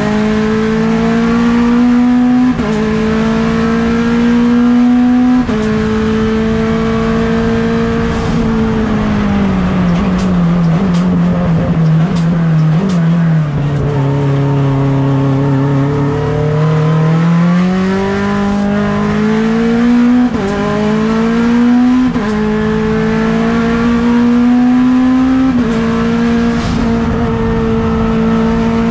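Mitsubishi Lancer Evolution X race car's turbocharged 4B11 four-cylinder at full throttle, heard from onboard. It pulls up through the gears with quick upshifts every two to three seconds, then comes off the throttle with the revs falling and a few sharp cracks. It then accelerates back up through the gears.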